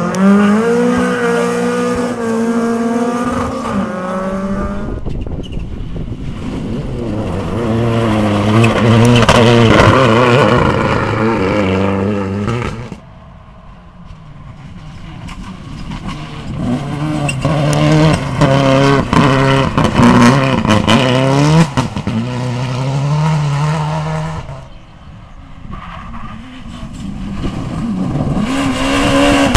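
Rally cars passing at speed one after another, each engine revving hard and stepping up and down in pitch through gear changes. The passes are separate, some ending abruptly.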